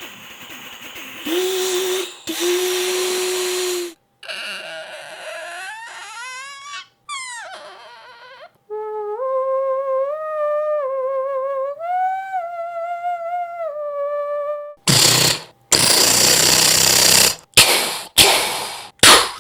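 A person imitating sounds with the voice, one after another. First a train: hiss and a held whistle tone. Then a creaking door in gliding squeaks, a flute melody, a long machine-gun burst, and a few pistol shots near the end.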